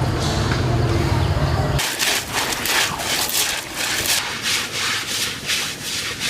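A steady low hum cuts off about two seconds in. It gives way to rhythmic rasping strokes, about three to four a second, like something being scraped or rubbed.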